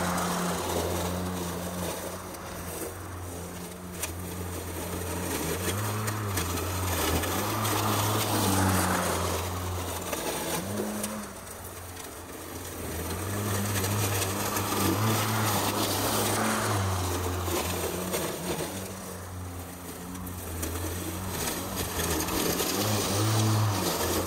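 Mowrator S1 remote-controlled lawn mower cutting long grass: a steady low motor hum whose pitch dips briefly several times and whose loudness rises and falls every few seconds as it drives back and forth.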